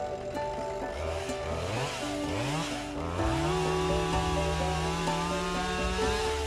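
Chainsaw engine revving in several short bursts, then opening up near three seconds in and held steadily at high speed. Light background music plays under it.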